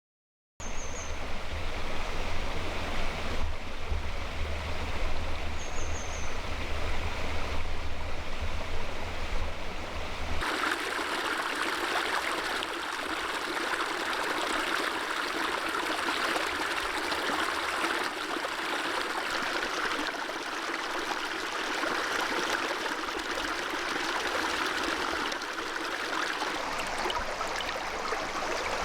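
A small mountain stream running over rocks, a steady rush of water that changes abruptly about ten seconds in, becoming brighter and losing its low rumble. A bird chirps briefly twice in the first six seconds.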